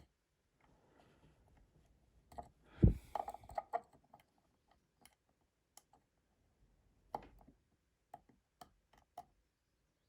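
Small scattered clicks of a lock pick working the pins of a BTV dimple cylinder lock under tension. There is a louder knock about three seconds in, followed by a quick run of clicks, and another small cluster of clicks around seven seconds.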